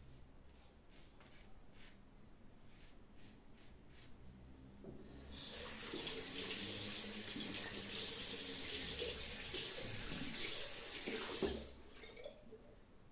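Mühle R41 safety razor scraping through lathered beard stubble in short, quiet strokes. About five seconds in, a bathroom sink tap is turned on and runs water for about six seconds, then is shut off abruptly.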